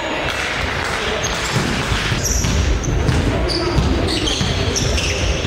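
Basketball game play: the ball thudding on a wooden gym floor, with players' footsteps and several short, high squeaks of sneakers on the floor.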